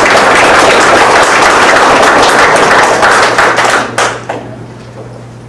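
Audience applauding: dense clapping that dies away about four seconds in, with a few last claps, over a steady low electrical hum.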